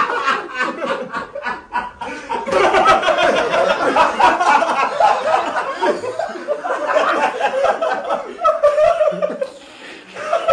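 A group of men laughing together, loud and pulsing, easing off briefly near the end.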